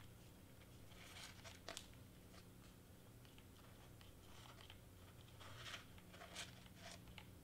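Near silence: faint rustles and a few light ticks of a hot glue gun and foam board being handled, over a steady low room hum.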